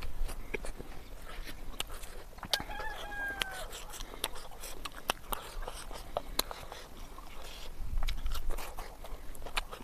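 Close eating sounds, lip smacks and chewing clicks, from a meal eaten by hand. A rooster crows once in the background about three seconds in.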